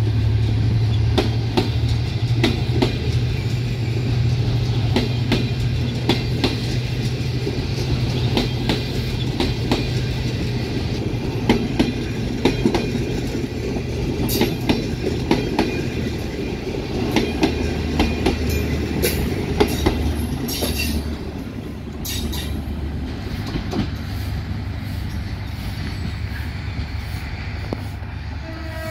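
Passenger coaches of a departing train rolling past, their wheels clacking over the rail joints in a fast irregular run of clicks over a low steady rumble. Near the end the clacks thin out and the sound fades as the last coach draws away.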